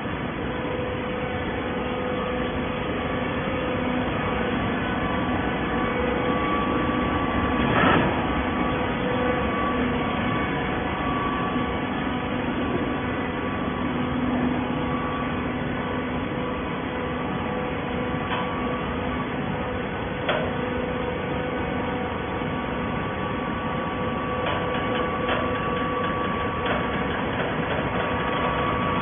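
Hydraulic baler's motor and pump running steadily with a humming whine, with a few knocks, the loudest about eight seconds in.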